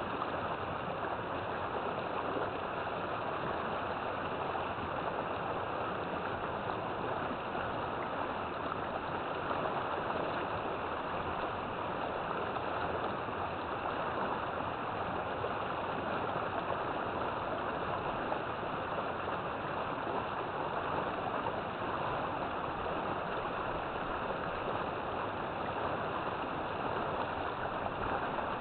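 River water flowing, a steady unbroken rush.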